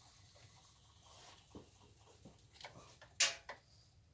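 Scattered faint clicks and light knocks, the sharpest a little after three seconds in.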